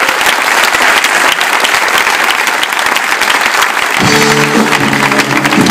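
A theatre audience and cast applauding, with instrumental music starting up about four seconds in.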